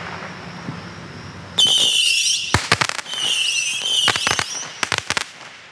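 Black Cat Missile Base firework cake firing volleys of small whistling missiles: several shrill whistles at once start about a second and a half in and again around three seconds, each volley ending in a quick run of sharp pops, with a few more pops near the end.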